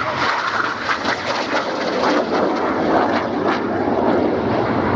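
BAE Hawk T1 jets flying a formation display, a steady loud rush of jet noise.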